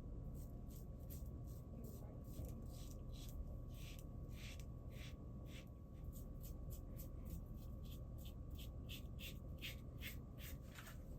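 Safety razor (Bakelite-handled Tech with a Dorco Titan blade) scraping through lathered stubble in a quick run of short strokes, about three to four a second, growing brisker toward the end.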